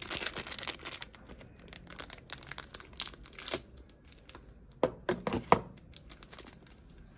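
A foil Betapac curry powder packet crinkling and tearing in the hand as the powder is shaken out: a dense run of crackly rustles for about three and a half seconds, then a few sharper crackles about five seconds in.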